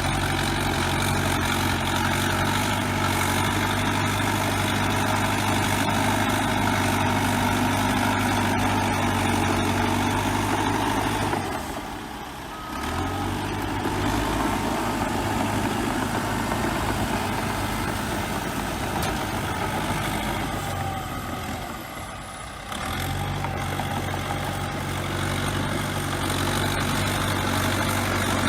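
Bulldozer diesel engine running steadily under load, easing off twice for a moment and picking up again.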